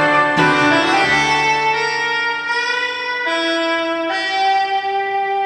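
Instrumental outro of a karaoke backing track for a Japanese ballad: a few long held melody notes, each a step higher than the last, over sustained chords.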